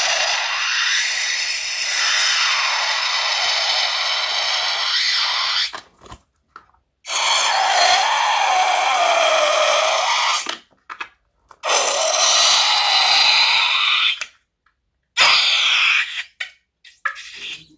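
Balloon squealing as air is let out through its neck, stretched and pinched between the fingers, while slime squirts out of it. A loud, high wavering screech in four long stretches with short breaks between, then a few short squeaks near the end.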